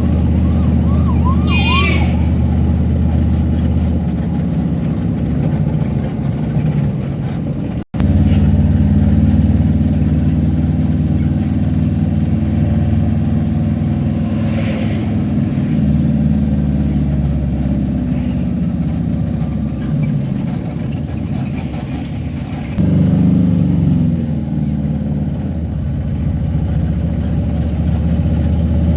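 A car driving along a road: steady low engine and road drone, with a brief warbling tone about two seconds in and an instant's break in the sound about eight seconds in.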